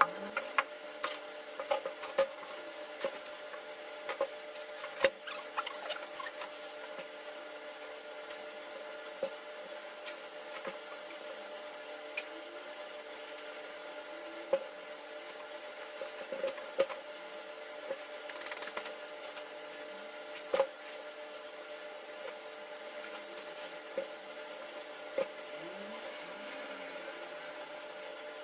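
Scattered light clicks and taps of parts and tools being handled during maintenance work on a Bosch GDC151 marble saw, over a steady low hum.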